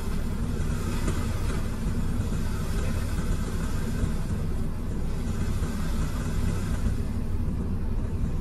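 Komatsu PC210 excavator's six-cylinder diesel engine running steadily as a low, even rumble, heard from inside the operator's cab.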